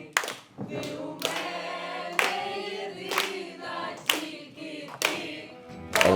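A group of voices singing together unaccompanied, with a sharp percussive beat struck about once a second.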